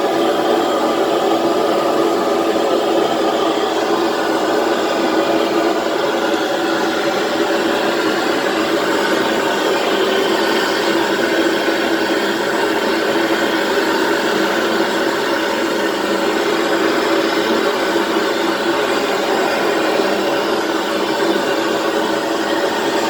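Gas brazing torch flame burning with a steady loud hiss, heating a copper pipe joint for silver brazing.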